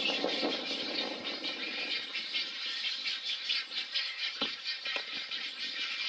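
Din of a nesting egret colony: a steady, dense chatter of rapid rattling and clicking calls. A louder, lower burst comes right at the start, and two short knocks come near the end.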